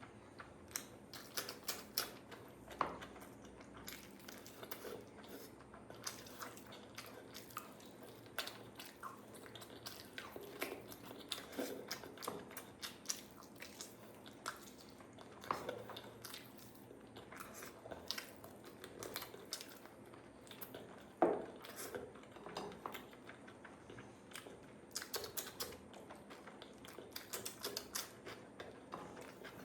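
A person chewing and biting into a curry-and-rice meal, a steady run of small, irregular mouth and food clicks, with one louder click about two-thirds of the way through.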